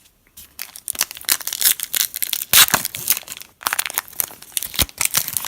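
Plastic wrapper of a Prizm trading-card pack being torn open and crinkled, a dense run of irregular crackles.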